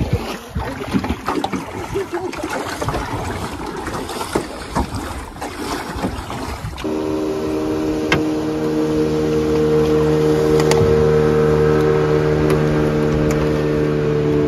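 Wind and water rushing past a moving boat. After a cut about seven seconds in, a Suzuki outboard motor idles steadily.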